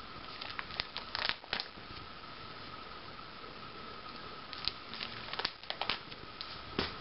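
Plastic pocket pages of a trading-card album being turned, crinkling and flapping in two short bursts, about a second in and again from about four and a half seconds, with one more crackle near the end. A faint steady high hum sits underneath.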